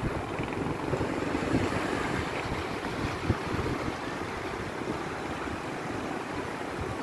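Sea water surging up through a hole in a flat coastal rock shelf and draining back down into it, with waves washing over the rock. Wind buffets the microphone throughout, a gusty low rumble under the water's hiss.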